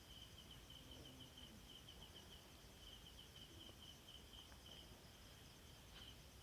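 Near silence: room tone with a faint, high-pitched pulsing chirp running steadily in the background.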